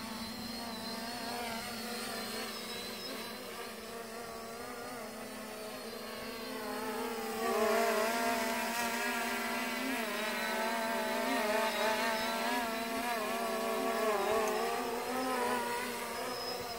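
Multirotor drone's electric motors and propellers buzzing in flight, the pitch wavering up and down as the motors adjust. It gets louder about halfway through as the drone comes closer.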